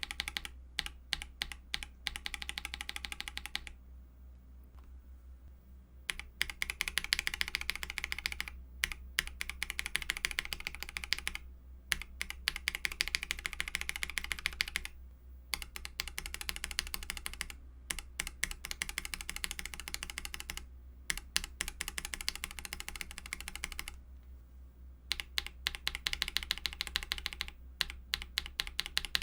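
Typing on a mechanical keyboard with lubed Akko CS switches: quick runs of keystrokes in several bursts of a few seconds each, broken by short pauses.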